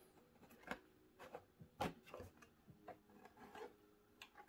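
Faint, scattered plastic clicks and taps of a Lego building being pressed onto a green Lego baseplate, the loudest about two seconds in.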